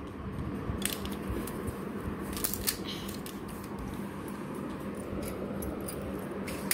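A few light plastic clicks and taps as small toy figures and Lego pieces are handled and set down on a hard floor, over a steady background hiss.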